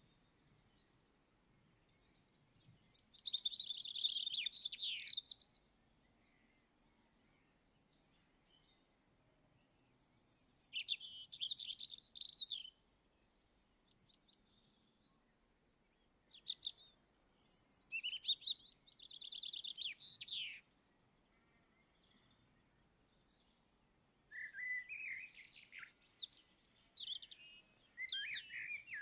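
Songbird song: bursts of quick, high warbled notes, each two to four seconds long, coming about every six seconds, with a longer, busier stretch near the end.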